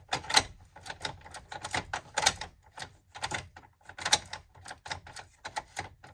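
Irregular sharp mechanical clicking, about three clicks a second.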